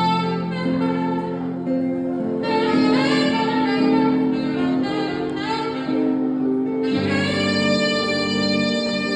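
Saxophone playing a melody of long held notes over backing music.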